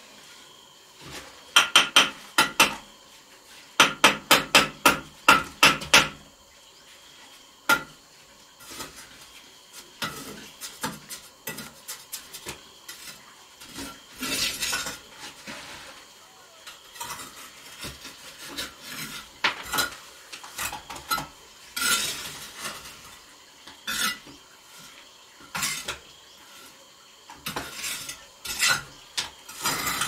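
Bricklaying: a steel trowel tapping freshly laid bricks down into their mortar bed, two quick runs of sharp knocks at about four a second, then softer scraping and scattered clinks as mortar is spread and bricks are set.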